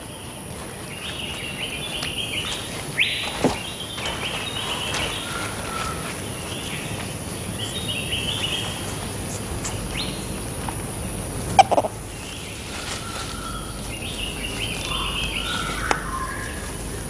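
Tropical forest ambience: a steady high-pitched insect drone with repeated short chirping calls, and two brief knocks, one about three and a half seconds in and one near the middle.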